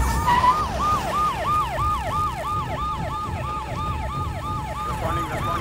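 Police car siren sounding a fast yelp, its pitch rising and falling about four times a second.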